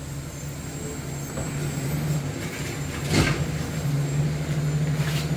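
Garbage truck engine running in the background, a steady low hum that grows louder, with one sharp metallic clink about three seconds in.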